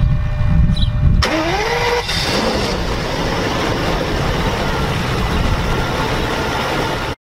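Car engine: a low rumble, then about a second in a sudden louder burst of sound with a rising whine, settling into loud steady running that cuts off abruptly at the end.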